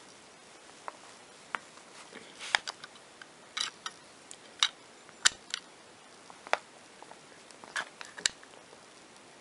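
Small metal wrench clicking and scraping on the nuts that clamp a copper-wire tip to a soldering gun's terminals as they are tightened: a dozen or so sharp, irregular metal clicks, the loudest a little past halfway.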